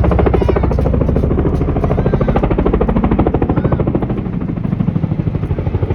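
Boeing CH-47 Chinook tandem-rotor helicopter flying, its rotors beating in a fast, even pulse over engine noise, easing slightly after about four seconds.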